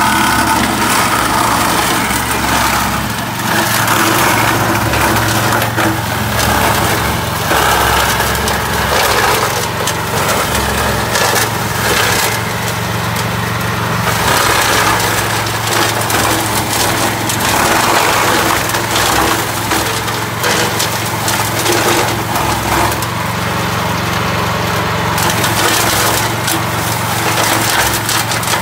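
Walk-behind brush mower's small petrol engine running steadily under load while its cutter chops through thick, dry weed stalks, with continual crackling and snapping that swells and eases in waves.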